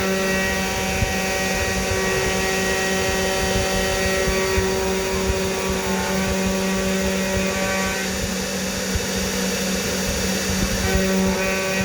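CNC 3018 desktop router milling brass: the spindle runs with a steady whine of several tones over a dense crackle from the cutter. The mix of tones changes between about seven and eleven seconds in, then returns.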